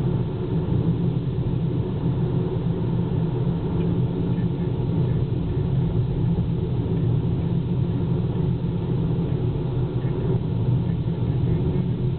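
Car driving at low speed on a paved road, heard from inside the cabin: a steady low rumble of engine and tyre noise.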